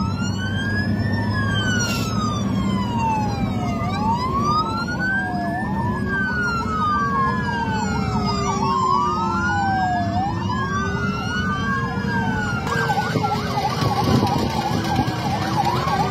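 Several police sirens wailing together, their slow rising and falling sweeps overlapping, over steady road noise. About three-quarters of the way through, a faster yelping siren joins in.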